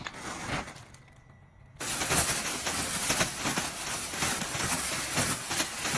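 Steady rushing hiss of air with a thin high whine, starting suddenly about two seconds in, as from an inflatable costume's battery blower fan keeping it inflated.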